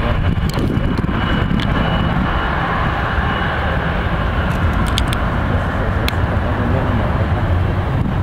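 Steady rumble of jet airliner engines on the airfield, with a few faint ticks about five and six seconds in.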